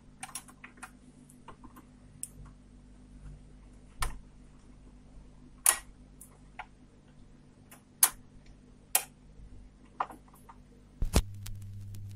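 Elektronika D1-012 turntable being set to play: scattered sharp clicks and knocks as the tonearm is handled. About eleven seconds in, a low thump as the stylus comes down on the record, followed by a steadier, louder hum with crackle from the lead-in groove.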